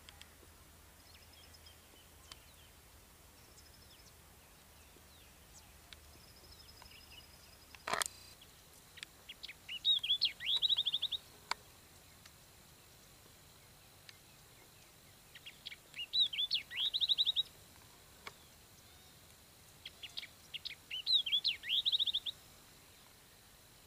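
A songbird singing three short phrases about six seconds apart, each ending in a fast trill of repeated notes. A sharp click comes about eight seconds in, and faint short chirps come before the first phrase.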